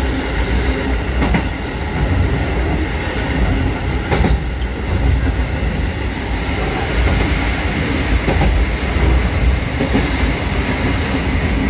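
Kotoden 1200-series electric train running along the track, heard from inside the cab: a steady low rumble of wheels and running gear, with a couple of sharp clicks from the wheels crossing rail joints.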